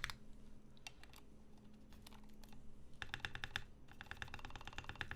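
Typing on a Rama M65-B mechanical keyboard with Gateron Ink switches on a brass plate: a few scattered keystrokes in the first second or so, then rapid, continuous typing from about three seconds in.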